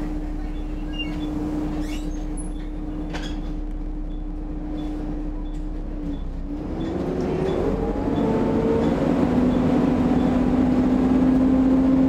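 Volvo B7TL double-decker bus heard from the upper deck: a steady whine from its six-cylinder diesel and cooling fans, then about six seconds in the bus pulls away, the note rising and growing louder through the ZF automatic gearbox before settling into a steady whine. A faint regular tick, about two a second, stops about seven seconds in.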